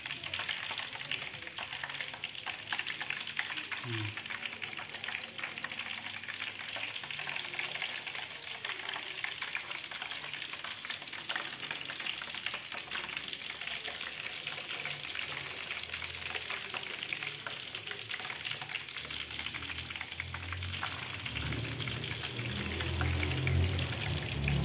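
Breadcrumb-coated chicken pieces deep-frying in a wok of hot oil: a steady, dense crackling sizzle. A low rumble comes in over the last few seconds.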